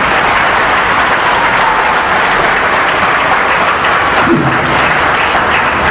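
A crowd applauding: steady, dense clapping.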